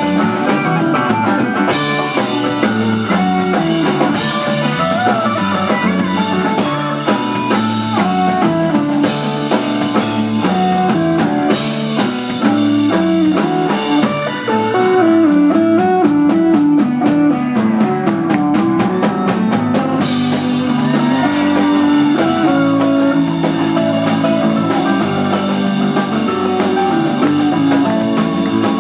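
Live rock band playing an instrumental: electric guitar lead over drum kit, bass, piano and Hammond B-3 organ. The cymbals drop back for several seconds in the middle, then return.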